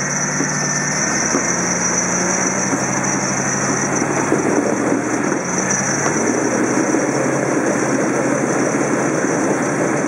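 Ford rock crawler's engine running at low revs as the truck crawls up a rock ledge, working harder and rougher from about four seconds in.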